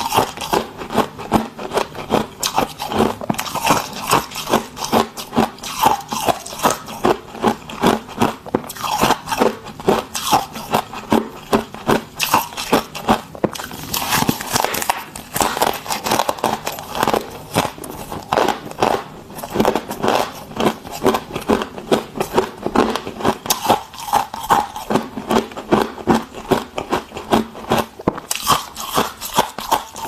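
Freezer frost being bitten and chewed: a steady run of crisp crunches, two or three a second.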